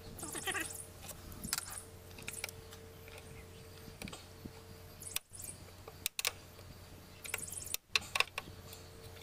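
Scattered small metallic clicks and rattles of a hand screwdriver with a T25 Torx bit being handled and set on the screws of a Jeep's engine computer (PCM), in short clusters over a faint steady hum.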